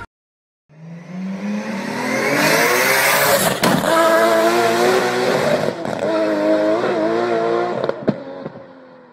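A car engine revving, starting a moment in with a climbing pitch, then holding a wavering note and fading out near the end, with a sharp click in the middle.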